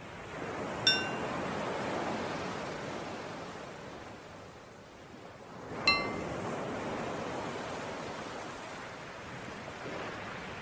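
Ocean waves washing in and out, with a small bell struck twice, about five seconds apart, each ring short and bright. Each strike is the cue to switch between breathing in and breathing out.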